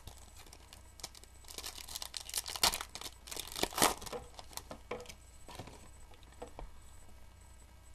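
Rustling and crinkling of Topps Finest trading cards being handled and flipped through, with crisp clicks as the stiff cards slide over one another. The rustling is busiest from about a second and a half to four and a half seconds in, then thins to scattered clicks.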